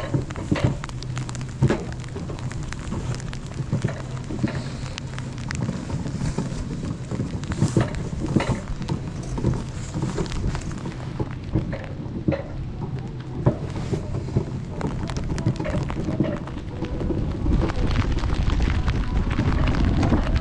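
Summer toboggan sled running along its track: a continuous rattling rumble with frequent sharp clicks and knocks, growing louder near the end.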